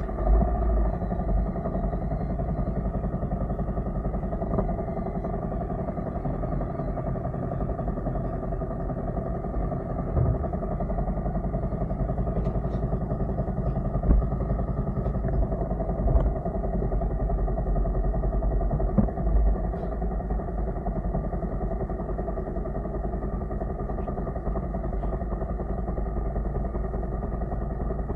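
Motorcycle engine idling steadily, with a few brief knocks.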